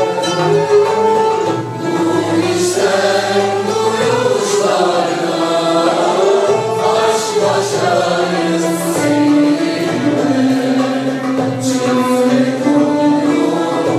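Mixed choir singing a Turkish art music (Türk sanat müziği) song, with sustained, gliding melody lines, accompanied by a small traditional ensemble of violin, cello, kanun, lutes and frame drum.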